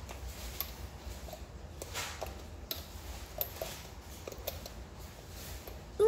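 Soft, scattered clicks and taps of a plastic hook and fingers working rubber bands on a plastic bracelet loom, over a low steady hum.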